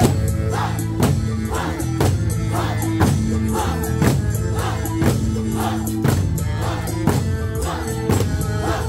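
Okinawan eisa drumming: large barrel drums and small hand drums struck together about once a second, over live band accompaniment with sustained notes.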